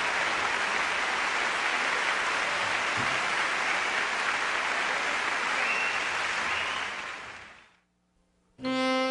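Large concert audience applauding steadily, the clapping fading away near the end.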